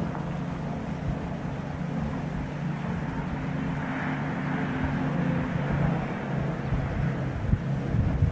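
Steady, low engine drone of a motor running at a constant pitch, with a faint swell partway through.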